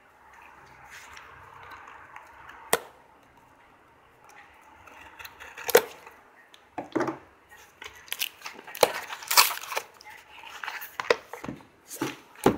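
Cardboard USPS Express Mail envelope being torn open by its pull tab: soft rustling at first, a single sharp snap, then a quick run of ripping and snapping paperboard through the second half.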